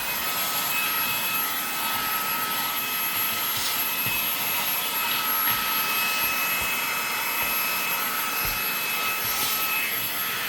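Fantikk vacuum cleaner running: its motor spins up with a rising whine, holds a steady high-pitched whine with a hiss of air, then winds down near the end.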